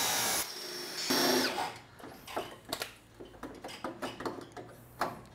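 Angle grinder cutting sheet steel, cutting out briefly and then winding down with a falling whine after about a second and a half. After that come irregular light metallic knocks and clinks as the spot-welded panel is worked by hand.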